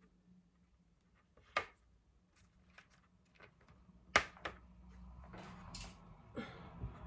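Quiet handling noises of a plastic stencil being pressed and smoothed against a cake: a few scattered taps and clicks, the loudest about four seconds in, with faint rustling from about five seconds on.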